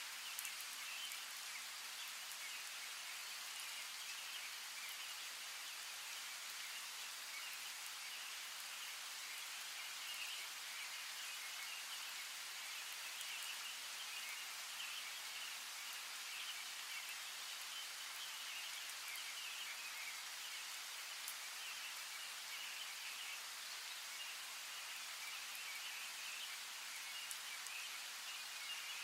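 Steady hiss of running water with a chorus of small animal calls chirping on and off through it.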